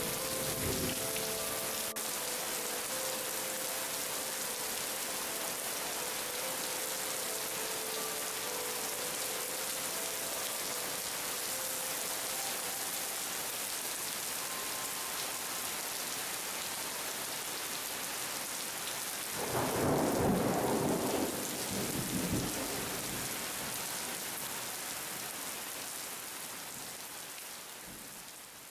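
Heavy rain falling steadily, with a low roll of thunder about twenty seconds in. The rain fades out near the end.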